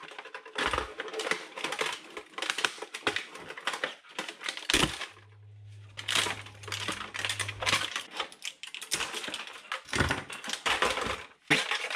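Rapid clicking, creaking and rattling of a cracked 3D-printed plastic plane fuselage being handled and pulled apart by gloved hands, with a low steady hum for a few seconds midway.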